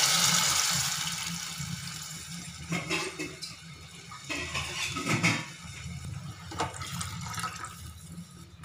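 Water poured into a hot aluminium pot of oil-fried onions and chillies, a loud rushing splash that fades over the first two or three seconds. A few brief knocks follow over the quieter pot.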